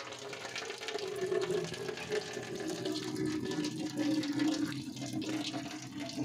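Cloudy rice-rinsing water poured in a steady stream from a container into a stainless steel sink and down the drain, with a steady low tone that sags slightly in pitch.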